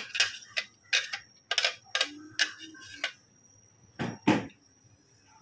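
About a dozen quick, sharp taps in three seconds, then two heavier knocks about a second later: a plastic blender jug being knocked against an aluminium wok to shake out the last of the ginger paste.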